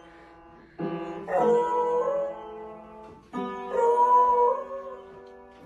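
A beagle pawing the keys of an upright piano, striking a cluster of notes that ring on, then howling along with a long, wavering howl. This happens twice: about a second in and again just past three seconds.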